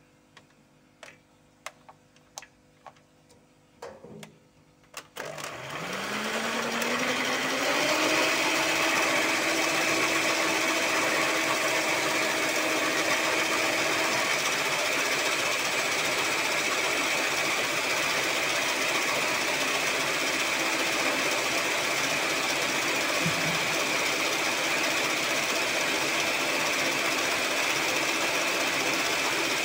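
A few light clicks, then an electric mixer switches on about five seconds in. Its whine rises in pitch as it spins up, and it then runs steadily, beating eggs, sugar and SP emulsifier until thick.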